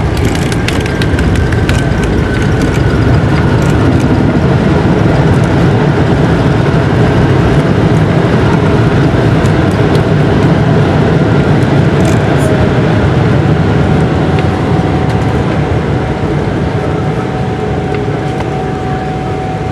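Cabin roar of a Boeing 777-300ER rolling out on the runway just after touchdown, spoilers raised: a loud steady rush of engine, airflow and wheel noise with a faint steady whine, easing off over the last few seconds as the jet slows.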